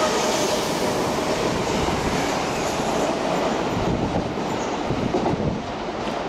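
Odakyu 3000 series electric commuter train running along the platform, a steady rumble of wheels on rail with a faint whine above it.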